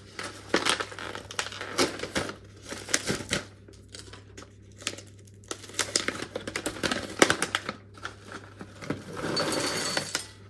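Crinkling plastic packaging of freeze-dried fruit being handled, in bursts of crackles, with a longer steady rustle near the end.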